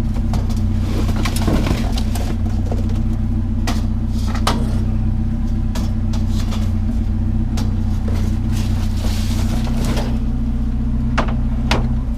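A vehicle engine idling steadily with a low hum, while loose items knock and clatter as someone rummages through discarded junk for scrap.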